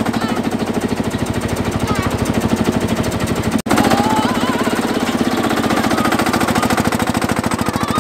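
Tractor engine running while driving, with a rapid, steady chugging beat of about ten pulses a second. The sound drops out for an instant a little over three and a half seconds in.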